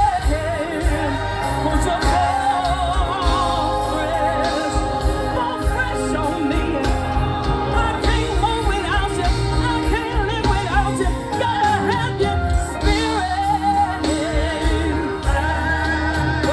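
Live gospel music: singing with a wavering vibrato over a band with a strong bass line.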